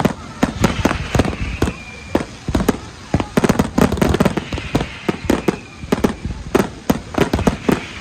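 Fireworks and firecrackers going off in quick, irregular succession: many sharp bangs and cracks, densest about halfway through.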